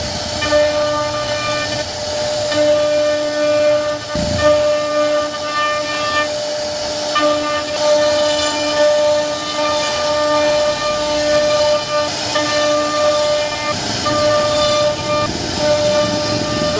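CNC router spindle whining at a steady high pitch while its bit carves grooves into a solid-wood panel, with the rasp of the cut beneath it. The whine breaks off and returns every second or two as the cutter changes direction and load.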